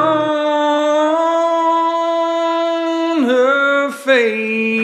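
A singer in a country song holds one long note for about three seconds while the low backing drops out just after it begins. The voice then dips and settles on a lower held note near the end.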